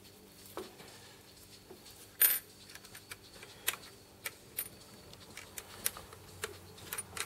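Scattered light metallic clicks and taps as a locking ring is screwed by hand onto the base of a PTZ camera, the sharpest click about two seconds in.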